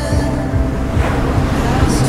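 Background music with held notes and a steady beat, with a noisy whooshing swell rising through it from about halfway.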